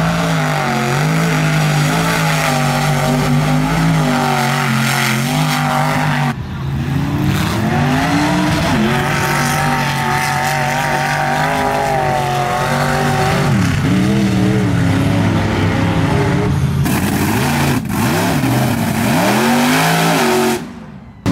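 Mud truck engines revving hard, their pitch climbing and falling again and again as the trucks power through a mud pit, with sudden changes where the footage is cut.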